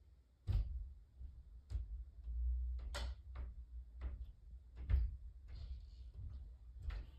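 Thumps and footfalls from the apartment upstairs, muffled through the ceiling: a run of irregular dull low thuds, some with a sharper knock on top, the loudest about five seconds in.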